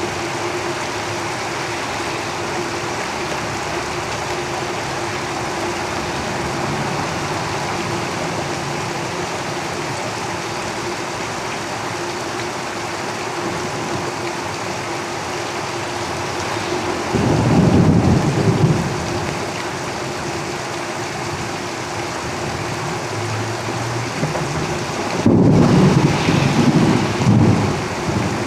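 Heavy rain falling steadily on a roof, a dense even hiss. Two deep rumbles rise over it, one about two-thirds of the way in and a longer one near the end.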